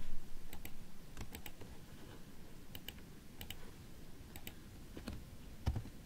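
Scattered clicks of a computer mouse and keyboard keys, several of them in quick pairs, over a faint low room hum.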